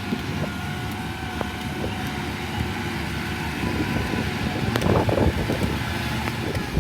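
Combine harvester running steadily with a low engine rumble, growing louder and rougher about two-thirds of the way through, with a couple of sharp clicks.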